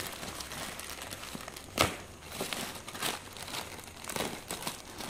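Plastic courier mailer bag crinkling and tearing as it is cut with a knife and pulled open by hand, in irregular rustles with a sharp crackle a little under two seconds in.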